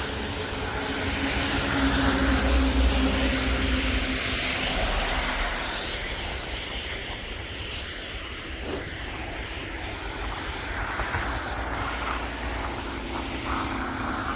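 A passing engine hum with a low rumble, growing louder to a peak about two to three seconds in and then fading away, over steady wind noise. A single short click about nine seconds in.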